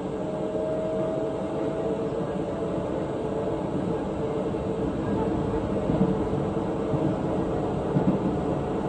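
Busan Metro Line 1 subway train running: a steady rumble with a faint whine, and two brief knocks in the second half.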